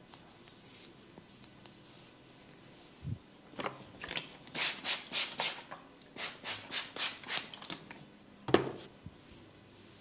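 Quick rubbing, scratching strokes of a head massage on hair and scalp, about a dozen in a row, two or three a second, followed about eight and a half seconds in by one sharp smack, the loudest sound.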